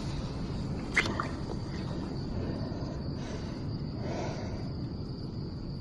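Crickets trilling steadily at a high pitch over a low background rumble, with a single sharp click about a second in.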